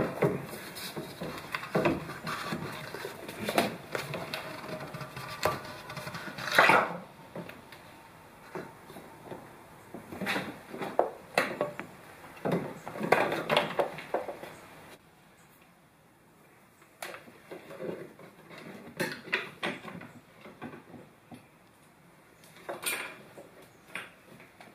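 Scattered clicks and knocks of a large plastic oil-transfer syringe and its hose being handled against metal parts in the engine bay while gear oil is pumped into the front differential. The clatter thins out about halfway through, then returns as sparser clicks.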